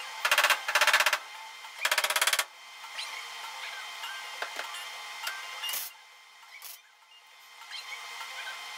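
Welder laying short tack welds on a thin sheet-metal patch panel: three half-second bursts of rapid crackling within the first couple of seconds, then small clicks. It is stitch welding in short spurts to keep the thin panel from warping.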